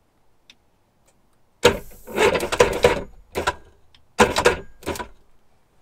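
The starter motor of a 1997 Sea-Doo GTX's 787 two-stroke engine, fed power directly, cranks in three short loud bursts, the first the longest. The starter turns on direct power, which points to a bad starter solenoid.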